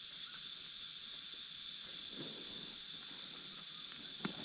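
Steady, high-pitched drone of a cicada chorus in summer bushland. A single sharp click sounds near the end.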